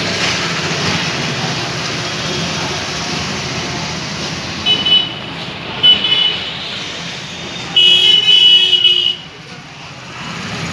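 Steady street traffic noise with vehicle horns honking: two short toots, then a longer blast of about a second.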